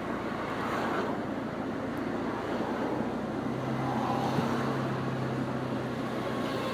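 Steady car and street traffic noise, with a low engine hum coming in about halfway through.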